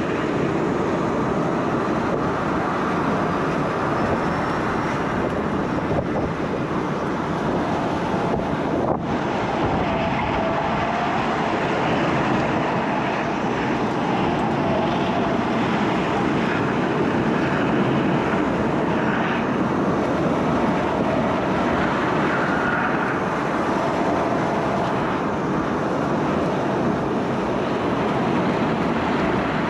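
Steady wind noise rushing over the microphone, loud and even throughout.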